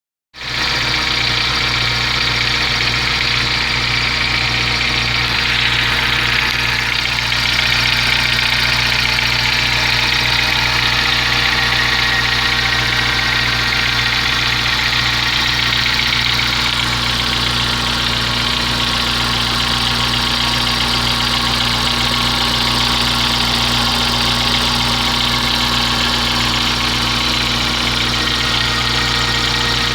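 Volkswagen Gol G4 engine running steadily at idle, with a noise in the engine whose meaning the owner does not know.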